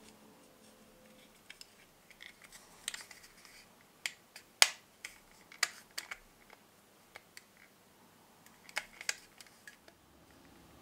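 Irregular small clicks and taps of hard plastic as fingers handle and press together the halves of a 1/72 scale plastic model helicopter fuselage, the loudest click about halfway through and a quick cluster near the end.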